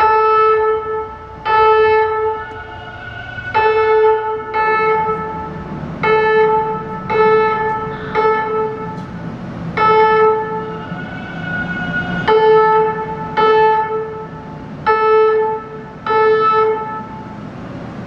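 Train horn sounding over a dozen short blasts at one steady pitch, each under a second long, with a low rumble underneath through the middle.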